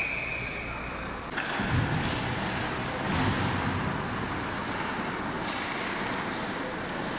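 A referee's whistle trails off in the first second, then the even din of an ice hockey rink during play: skates and sticks on the ice with the hall's general noise.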